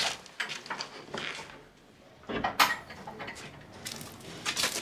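Scattered light knocks, clicks and rustling of someone moving about and handling things in a small room, with a sharper knock about two and a half seconds in and a quick run of clicks near the end.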